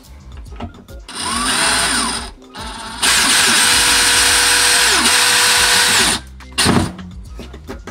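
DeWalt Xtreme 12V cordless drill driving screws through a plastic mounting plate into Toggler drywall anchors. It runs in bursts: a short spin-up about a second in, then a longer steady run of about three seconds, then a brief blip near the end.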